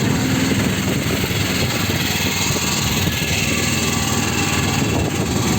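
Heavy rain falling steadily, a dense, even noise.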